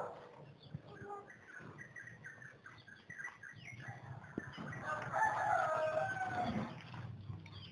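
A rooster crowing once, a long call about five seconds in, after scattered short chirps and clucks.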